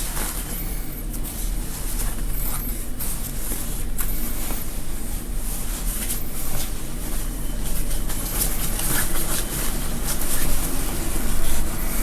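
Fabric rustling and crackling in short irregular bursts as the gown is handled and cut, over a steady low electrical hum.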